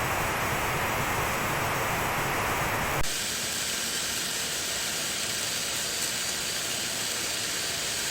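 Steady rushing hiss with no distinct events. About three seconds in it changes abruptly to a thinner, higher hiss.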